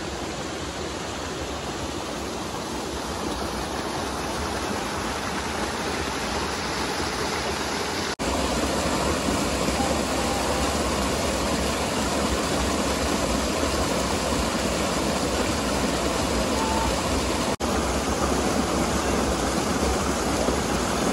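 Small forest waterfall: stream water rushing and splashing down over boulders in a steady rush. It gets louder after a brief drop-out about eight seconds in, and drops out briefly once more later.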